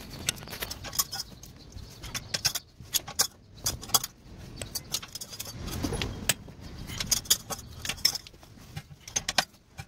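Scattered light metallic clinks and clicks from hand tools being handled, at irregular spacing, with a duller knock about six seconds in.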